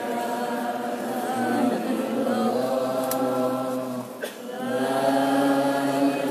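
A group of men's voices chanting together in unison on long held notes. The chant breaks briefly about four seconds in, then resumes.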